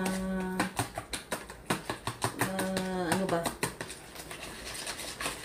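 Wire whisk beating eggs and melted margarine in a plastic mixing bowl: a quick, steady run of clicks as the wires strike the bowl.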